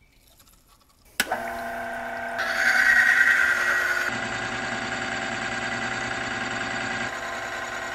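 About a second of near silence, then a click, and the electric motor of a bench friction testing machine runs steadily, driving a steel wheel against a metal test cylinder under load. The hum holds several steady tones and is brighter and louder between about two and a half and four seconds in.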